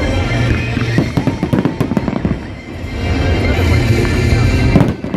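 Aerial fireworks bursting overhead: a dense run of bangs and crackling, with a louder cluster of bangs near the end.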